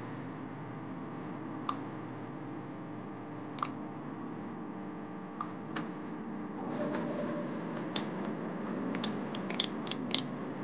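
A spoon clinking lightly against a glass measuring jug while a vinegar and syrup dipping sauce is stirred, a few scattered clinks and then a quick cluster near the end, over a steady low background hum.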